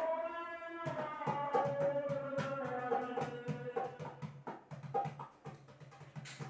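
Background music: a sustained melody over a steady drum beat.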